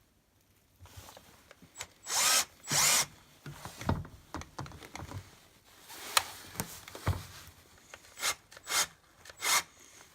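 A cordless drill-driver running in short bursts as it screws hardened-steel grip studs into a rubber excavator track. Two longer runs come about two seconds in, then several brief ones with clicks between.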